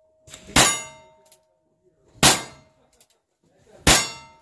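Three revolver shots about a second and a half apart, each met at once by the ringing clang of a steel target being hit, the ring hanging on between shots.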